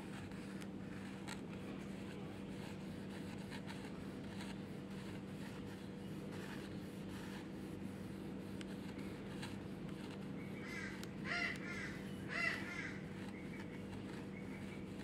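Faint, soft scraping of a fingernail along the thin plastic recovery blade of a toner cartridge, over a steady low hum. Near the end a bird calls twice, about a second apart.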